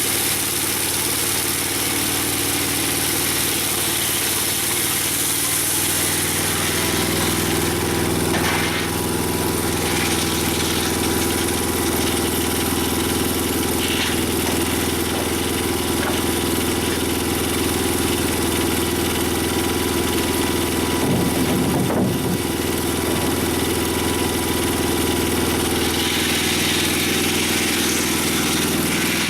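Mobile Dimension sawmill's engine running steadily. Its tone shifts and thickens about six seconds in.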